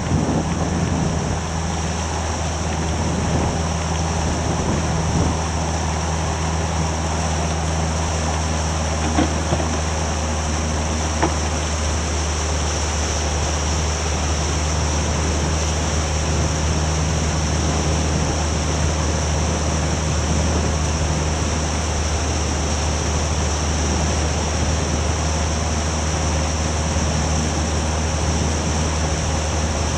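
A rigid inflatable boat's outboard motor running steadily under way, a constant low hum, over the rush of water and wind.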